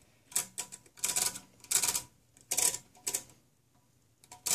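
Setting levers of a 1958 DIMM pinwheel mechanical calculator being slid one after another to enter a number, each clicking through its notches. The clicks come in short bursts about half a second apart.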